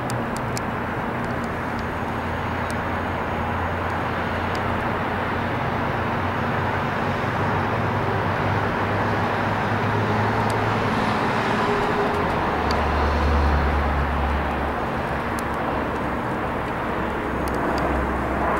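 Engine noise of an approaching aircraft: a steady rumble that swells a little louder in the second half.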